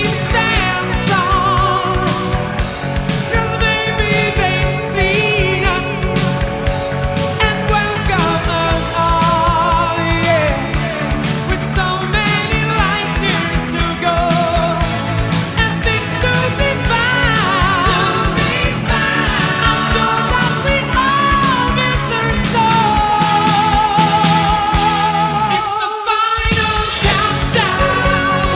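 Rock song with a sung vocal over a full band backing; the low end drops out briefly near the end.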